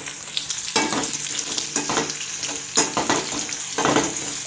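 Sliced onion and curry leaves sizzling in hot oil with popped mustard seeds in a pan as they are stirred. The stirring scrapes against the pan about once a second over a steady hiss.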